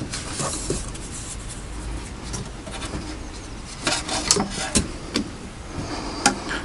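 Scattered light clicks and knocks of tools and engine parts being handled, with a quick run of them about four seconds in and one sharp click near the end.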